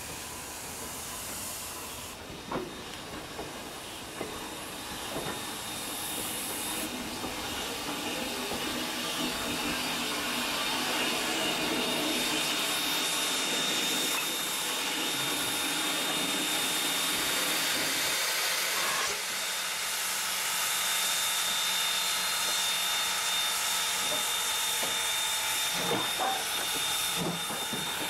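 Norfolk & Western 475, a 1906 4-8-0 steam locomotive, moving slowly past close by with a steady hiss of steam that grows louder as it nears. A thin high steady tone runs under the hiss, and there are a few short metallic knocks.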